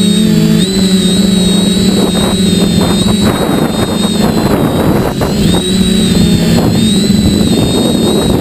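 Small camera drone's electric motors and propellers whining steadily from on board, the pitch stepping up and down slightly as it manoeuvres, with wind rushing over the microphone.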